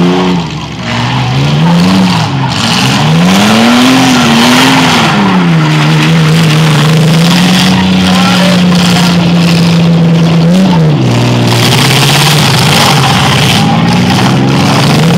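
Demolition derby car's engine revving hard, its pitch rising and falling several times, then held high and steady for about five seconds before dropping back about eleven seconds in.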